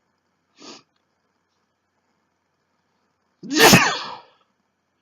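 A man sneezing once, loudly, about three and a half seconds in: a sneeze brought on by chhinkni, an herbal sneezing powder he has just sniffed. A short faint sound comes before it, under a second in.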